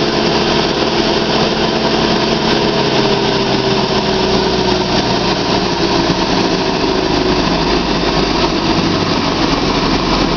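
Vaccon pipe-cleaning jetter nozzle blasting jets of water out to both sides: a loud, steady rushing hiss, with an engine running steadily underneath.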